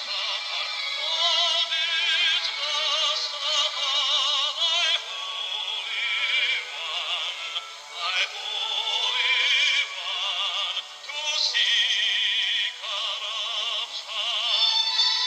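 Background music with a singing voice in heavy vibrato, thin-sounding with no bass.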